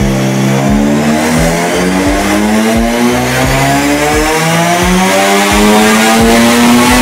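Turbocharged swapped engine in a Nissan Skyline R32 making a long pull on a chassis dyno, its note climbing steadily in pitch as the revs rise under load.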